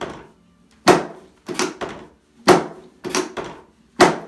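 Series of sharp knocks from a chiropractic adjustment of the pelvis. A loud knock comes about every second and a half, with a softer double knock between each pair of loud ones.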